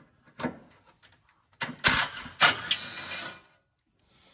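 Small cordless impact gun running in a burst of about two seconds, backing out a skid plate bolt, with a few sharp knocks inside it; it stops abruptly.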